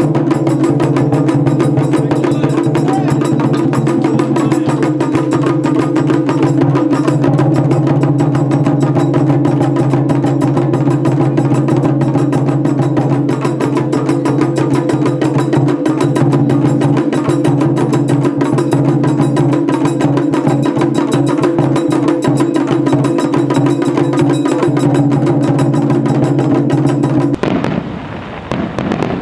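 Festival taiko drumming: several small taiko drums on wooden stands beaten with sticks in a fast, continuous rhythm. Near the end the drumming cuts off and fireworks are heard popping.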